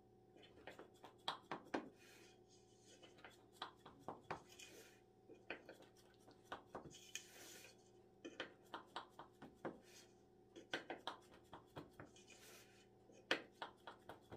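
Kitchen knife cutting through stacked sheets of baklava dough in a stainless steel tray: faint, irregular clicks and taps of the blade against the metal, with a few soft swishes as it draws through the layers, and one sharper click near the end.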